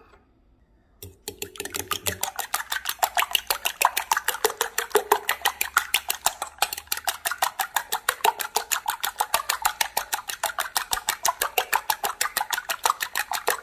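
Fork beating two raw eggs in a ceramic bowl: rapid, even clinking of the fork against the bowl, starting about a second in.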